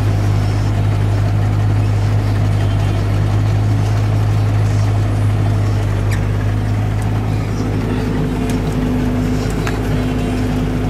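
New Holland T7030 tractor's six-cylinder diesel engine running with a steady drone, heard from inside the cab. A higher steady hum joins about seven seconds in, and there are a few faint clicks.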